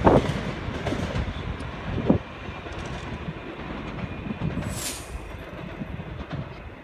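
Train moving through the station, a steady rumble with a couple of knocks at the start and about two seconds in. A brief high-pitched squeal comes about five seconds in, and the sound eases off toward the end.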